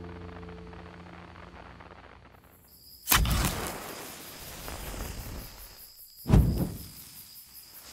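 A match struck and flaring about three seconds in, then a second sharp strike about three seconds later, over a steady chirring of crickets. A low music drone fades out at the start.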